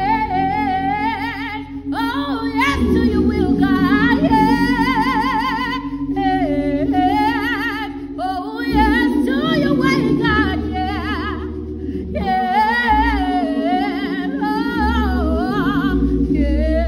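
A woman singing a solo worship song with wide vibrato, over steady held low chords.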